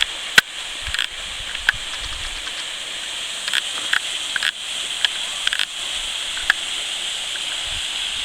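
Waterfall: a steady hiss of falling and splashing water, broken by a scattered series of short sharp clicks.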